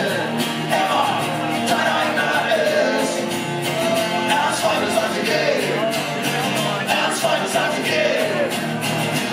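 Live acoustic rock: a male singer over strummed guitars, heard from within the audience.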